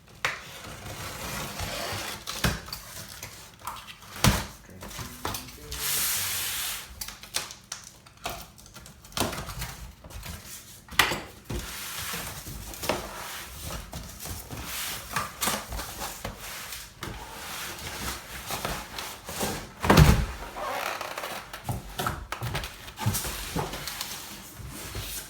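Cardboard packaging being handled and opened: scraping and rustling with many knocks and clunks, and one heavy thump about twenty seconds in.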